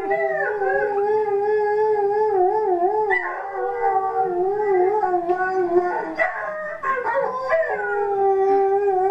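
Malamute howling: long, wavering held notes, broken off about six seconds in by a few short yips before a second long howl starts.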